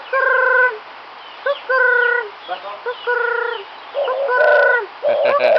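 A tame cuckoo calling over and over: four calls about a second and a half apart, each a short rising note followed by a held, steady note. Near the end the calls grow denser and overlap.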